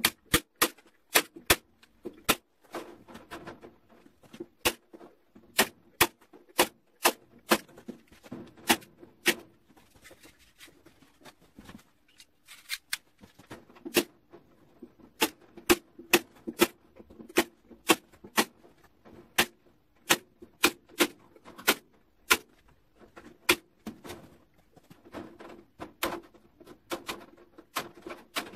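Manual hand staple gun firing staples one after another, driving them through chicken wire into the wooden frame: sharp snapping clacks at roughly one to two a second, with a short pause about ten seconds in.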